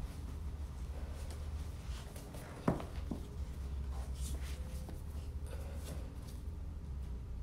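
Towel rustling and rubbing as a Doberman puppy is dried off, over a low rumble, with one sharp knock a little under three seconds in.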